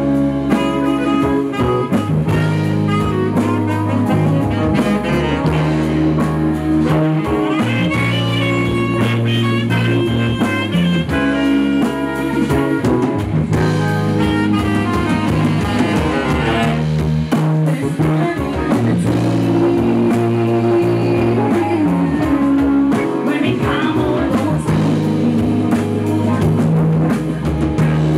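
Live band playing a song: drum kit, bass and guitar under a saxophone line, with a horn section that includes trombone.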